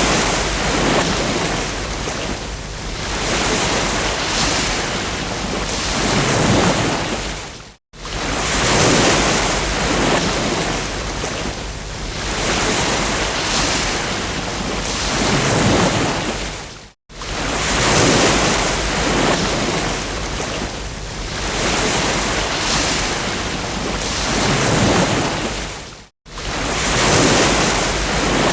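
Ocean surf: waves breaking and washing up the beach, swelling and easing every few seconds. The sound cuts out to silence for a split second about every nine seconds.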